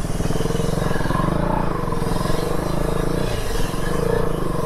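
Motorcycle engine running steadily as the bike is ridden, heard from the rider's seat.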